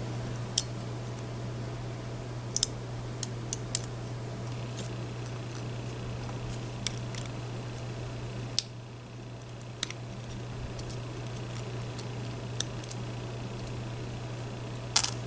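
Scattered small sharp clicks of tweezers and tiny lock pins and springs being handled while the lock is taken apart, over a steady low hum. The loudest clicks come near the end.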